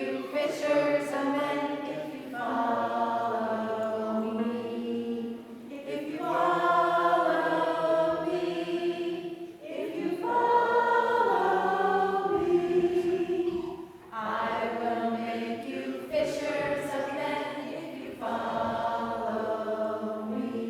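A choir of mixed voices singing a slow sacred song in long held phrases, with short breaks between phrases.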